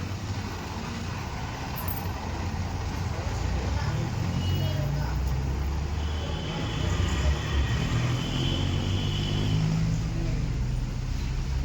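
A car engine running with a steady low rumble, growing louder about four seconds in.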